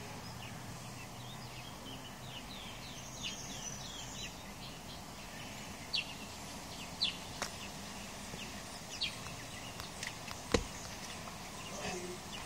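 Birds chirping faintly in the background, then a few sharp camera-shutter clicks in the second half, the loudest one near the end with a low knock in it.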